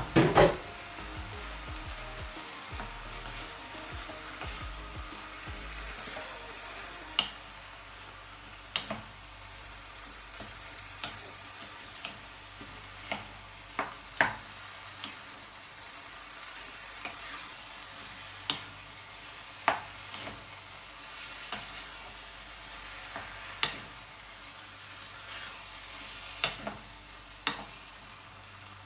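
Minced pork sizzling gently in a frying pan with sautéed tomatoes, onions and capsicum, being stirred with a wooden spoon. The spoon knocks against the pan every second or two, loudest twice right at the start.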